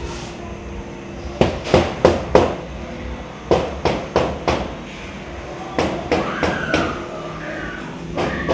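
Loud bangs in quick runs of three or four, about three a second, over a steady low hum. A wavering tone rises and falls near the end.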